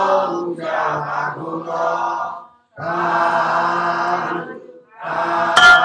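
Buddhist blessing recitation in Burmese and Pali, a monk and a kneeling congregation chanting phrase by phrase in a sing-song drone, with short pauses between phrases. Near the end a sharp strike sounds and keeps ringing with a steady tone.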